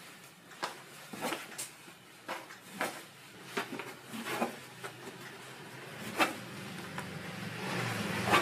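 Kitchen knife chopping through soft dough and tapping on a plastic cutting board: a run of sharp, irregular taps. A low steady hum sets in about six seconds in.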